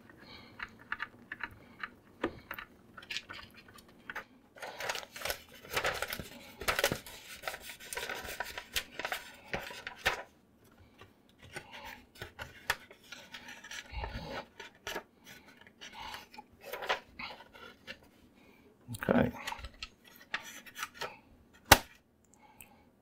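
Hands working on an HP ThinkJet inkjet printer's plastic case and paper path: a string of sharp plastic clicks, knocks and light clatter, mixed with paper rustling as fanfold paper is fed in.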